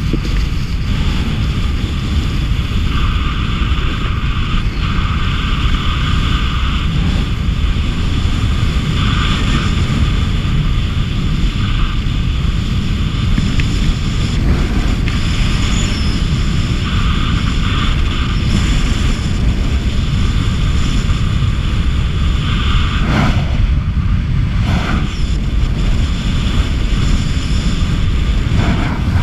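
Wind buffeting an action camera's microphone at skiing speed, a loud steady rumble, with the hiss of skis sliding and carving on groomed snow swelling and fading with the turns and a couple of sharper scrapes near the end.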